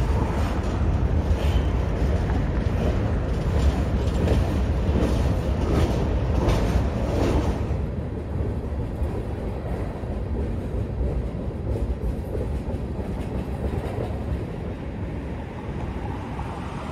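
Freight train's cars rolling slowly past below: a steady low rumble of steel wheels on rail, with clicks over the rail joints in the first half. Smoother and a little quieter in the second half.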